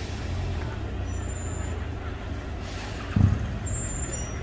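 Heavy-haulage truck engine running with a steady low rumble as an oversize convoy moves slowly, with short hisses of air and a single loud thump about three seconds in.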